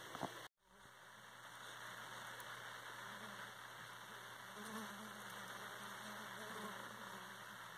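Faint steady hiss of background noise, broken by a brief dropout to silence about half a second in.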